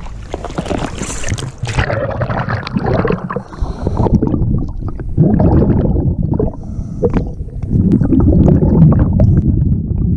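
Water splashing as the camera goes under the surface, then muffled underwater noise: water sloshing and gurgling against the camera, mostly low and dull.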